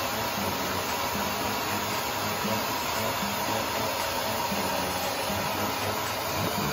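Handheld hair dryer running steadily, a constant rush of air with a faint motor whine, drying a freshly shampooed kitten's fur.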